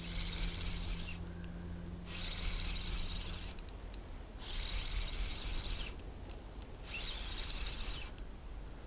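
Spinning reel being cranked in four short bursts of about a second each, with pauses between: a stepped jig retrieve, the whir of the reel's gears and rotor coming in separate spurts.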